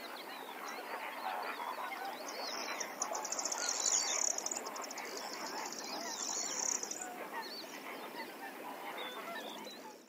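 A large flock of birds calling at once, many short overlapping calls. A fast, high-pitched rattling trill stands out from about two and a half to seven seconds in.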